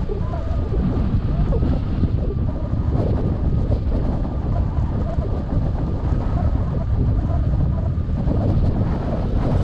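Rushing airflow on a wing-mounted camera's microphone during hang glider flight: a steady, loud low wind rumble, with a faint steady high whistle above it.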